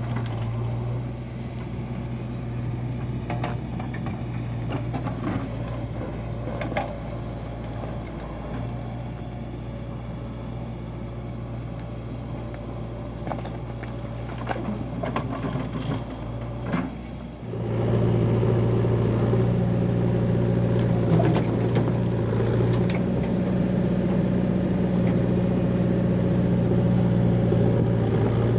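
JCB 3DX backhoe loader's diesel engine running steadily as it loads soil and stones into a tipper truck, with scattered knocks and rattles of stones landing in the steel body. About two-thirds of the way in the sound changes abruptly and the engine hum becomes louder and closer.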